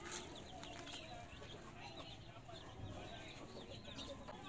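Chickens clucking faintly in the background, with a couple of light clicks early on as sea urchins are picked out of a metal bowl.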